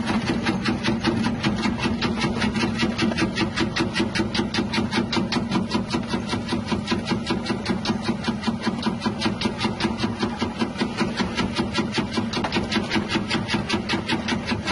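Electric chip-slicing machine running: its motor hums steadily under a rapid, even clatter of the spinning blades, several strokes a second.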